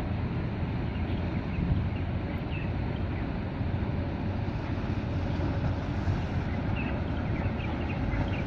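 Wind buffeting the microphone over a steady low rumble of open harbour water, with a few faint short high chirps now and then.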